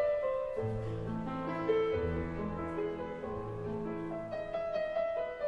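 Background intro music: piano melody with bass notes, changing notes about every half second.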